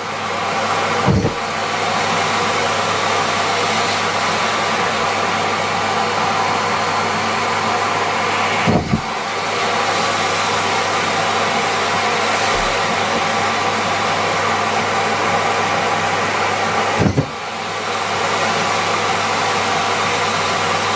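Miele Complete C3 canister vacuum running steadily with its dust bag removed, sucking up socks. Three times the sound breaks with a brief knock and a short dip in the suction noise.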